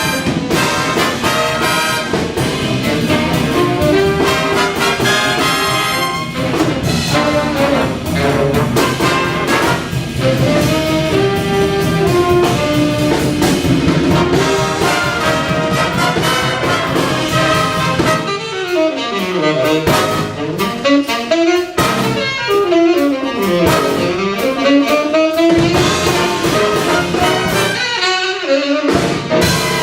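A big band playing a swing jazz arrangement live, with the brass and saxophone sections playing together. Past the middle the bass drops away for a few seconds at a time, leaving the horns playing lines that slide down and back up.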